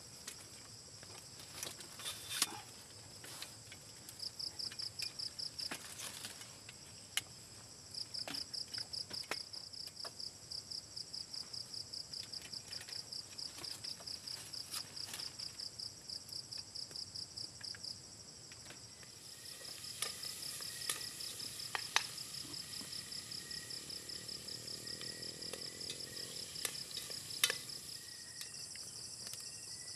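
Night insects trilling in a high, rapidly pulsing chirp that runs in long bouts several seconds each, stopping and starting again. Scattered sharp clicks and scrapes of a metal spoon against a metal cooking pot as rice is scooped out.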